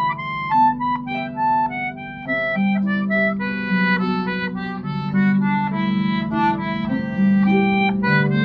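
Concertina and Irish harp playing a tune together: the concertina carries the melody over held chord notes while the harp plucks an accompaniment.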